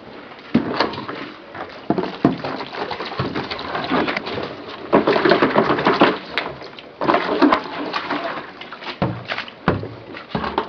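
Handling of laundry gear: cloth rustling and a plastic washbasin and jerrycan being shifted and knocked, in irregular knocks and scrapes that are busiest about halfway through.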